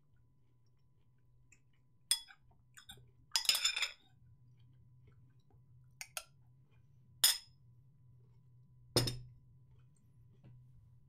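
Cutlery clinking against a dish as someone eats: sharp clinks about two, six, seven and nine seconds in, with a brief rattling scrape about three and a half seconds in.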